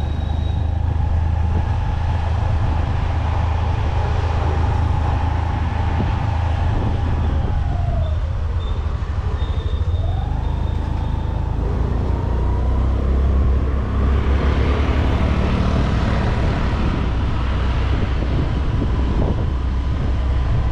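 Road noise from a moving battery e-rickshaw (toto): a steady low rumble with a thin electric-motor whine. The whine drops in pitch as the rickshaw slows about eight seconds in, then climbs again as it picks up speed.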